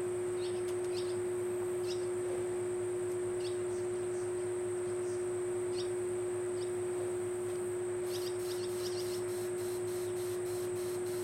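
A steady hum with faint, scattered bird chirps over it; from about eight seconds in, a quick regular chirping starts, about three or four a second.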